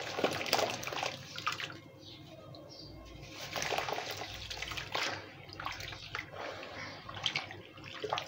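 A lump of sand being squeezed and crumbled by hands in a basin of water: irregular sloshing and splashing, coming in several bursts about a second in, in the middle and near the end.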